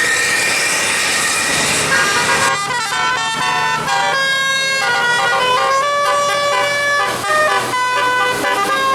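Bus telolet musical air horn playing a quick tune of stepped notes, starting about two seconds in, over a low steady drone.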